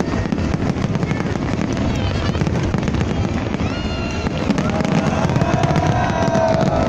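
Fireworks display going off in a dense, continuous crackle of rapid bangs and pops.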